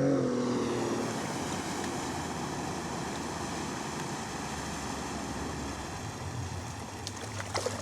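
Steady outdoor noise of wind on the microphone and moving river water, with a brief humming tone that swells and fades in the first second and a few short splashes or knocks near the end.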